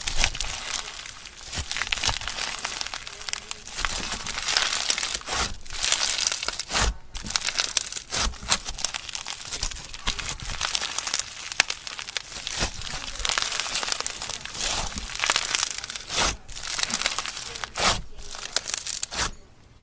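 Crunchy slime being squeezed and worked by hand, giving a dense, continuous crackling and crinkling of many sharp little pops, with a few brief pauses.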